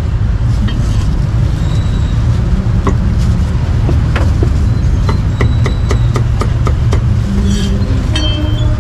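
Steady low rumble of street traffic, with a run of sharp knocks, about three a second at their quickest, from a cleaver chopping meat on a wooden board.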